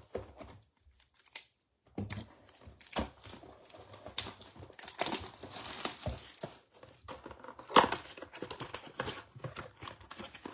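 Plastic shrink-wrap crinkling and tearing as a sealed box of 2022 Topps Archives baseball cards is unwrapped and opened, with foil packs and cardboard rustling as they are handled. There is a sharp snap a little before eight seconds in.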